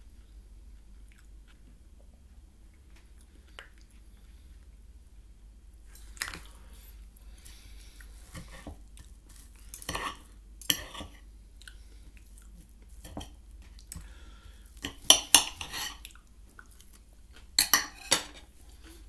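Cutlery clinking and scraping against a plate in short clusters, starting about six seconds in and loudest near the end, with chewing in between.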